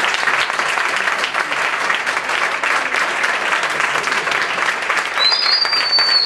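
Audience applauding at the end of a talk, a dense steady clapping. A high whistle rises above it for about a second near the end.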